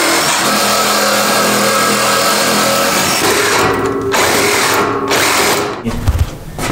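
Cordless reciprocating saw cutting through a metal radiator pipe, the motor running steadily with the blade rasping on the metal; it eases off briefly twice and stops about six seconds in, followed by a few low knocks. The blade is wearing out from cutting the dry pipe.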